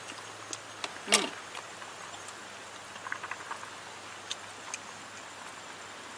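Steady rain with scattered drops tapping, and one louder knock about a second in.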